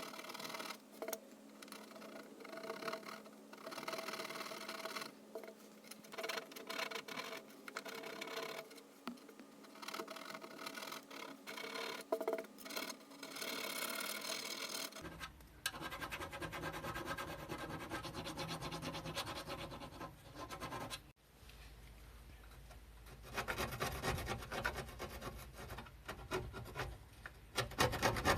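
Repeated scraping and rubbing of rust and paint being abraded by hand from a car's steel body panel. The sound changes abruptly about halfway through and again a few seconds later.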